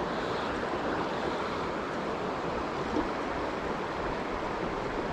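River current flowing over a shallow rocky riffle: a steady, even rushing of water.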